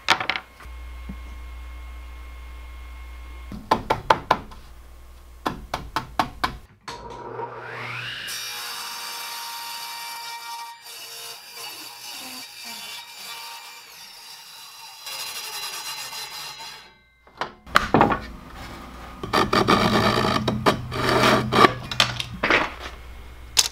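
Table saw spinning up with a rising whine, then running while ripping thin strips of hickory, stopping briefly and cutting again more loudly near the end. A few sharp clicks and knocks come before the saw starts.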